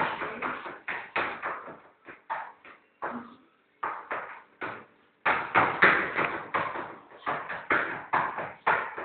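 A toddler's shoes stamping on a tabletop as she dances: a run of quick thumps, sparser around the middle, then coming thick again about five seconds in.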